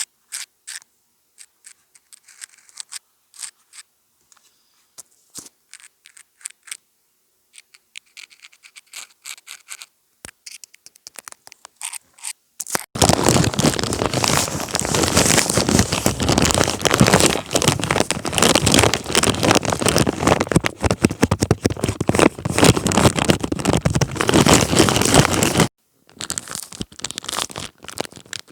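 Close-miked ASMR scratching and scraping on a homemade ASMR contraption: scattered sharp clicks and scratches, then about 13 seconds in a dense, loud crackling scrape that runs for about 13 seconds and cuts off suddenly, followed by lighter crackles.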